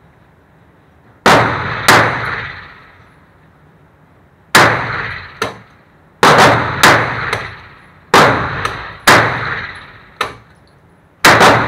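Pistol shots in an indoor shooting range: about eight loud reports, in pairs and singles spread over several seconds, each with a short echoing tail. A few fainter cracks fall between them.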